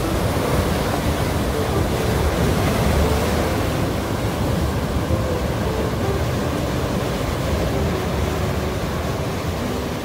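Sea waves breaking and washing over a rocky shore: a steady rush of surf that swells and eases.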